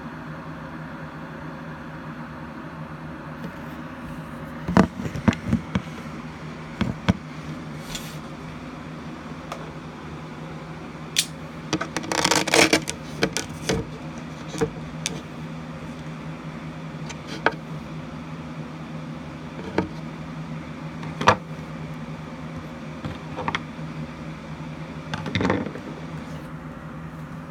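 Steady low hum with scattered sharp clicks and light rustles, and a short burst of crackling about twelve seconds in.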